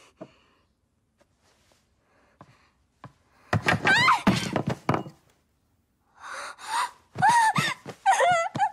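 A woman cries out as she is thrown back onto a wooden floor with a thud, about three and a half seconds in. Near the end come a series of short gasps and pained whimpers. A few faint clicks come before the fall.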